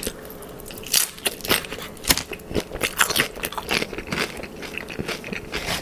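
Close-miked chewing of crunchy Doritos nachos loaded with chicken and cheese, with irregular crisp crunches starting about a second in.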